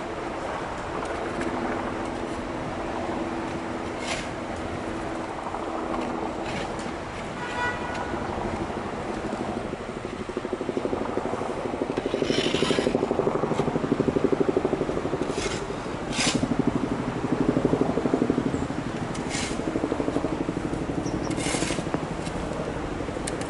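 Steady outdoor city noise with a low hum. About halfway in, a fast low pulsing comes in and grows louder. Several short sharp scrapes or clicks are scattered through it.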